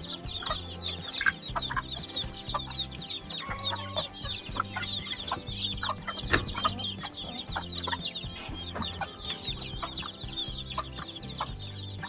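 A flock of chickens clucking, with many short, high chirps throughout.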